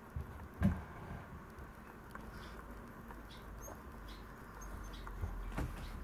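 Maltese dog pawing at and knocking against a wire pen panel, asking to be let out, with faint short high whimpers scattered through. A knock is heard about half a second in, and another near the end.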